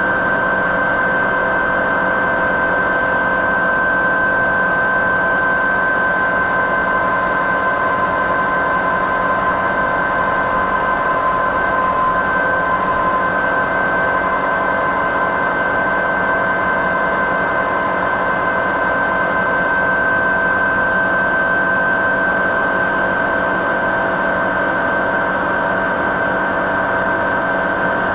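Bridgeport knee mill running under power downfeed, its drill bit cutting down through the 1/4-inch wall of 4x4 square tubing. It makes a steady mechanical whine that holds several pitches and does not change.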